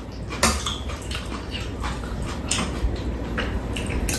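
Close-up eating sounds: chewing and mouth noises, with spoons lightly clicking and scraping against bowls in a string of short, irregular ticks.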